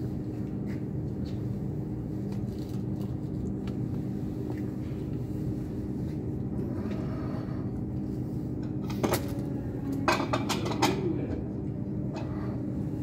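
A steady low mechanical hum throughout, with a few sharp clinks and rattles of handled objects about nine to eleven seconds in.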